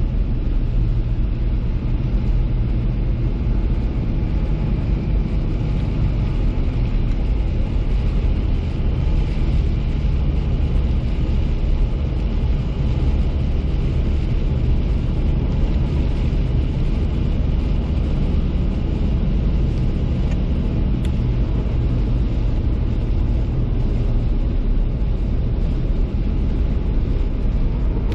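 A car being driven at a steady pace: a constant low rumble of engine and road noise that holds evenly throughout.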